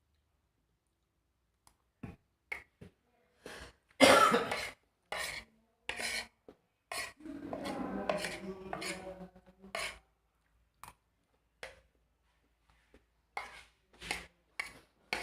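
A person eating swamp cabbage (water spinach) and rice close to the microphone: irregular short crunches, smacks and clicks, with a louder burst about four seconds in and a longer rough, throaty stretch around eight seconds.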